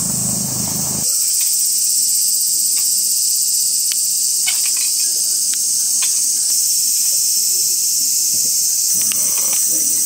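Loud, steady high-pitched chorus of insects, with a low rumble that stops about a second in. Scattered light clicks of thin twigs being placed in a small stainless steel box stove.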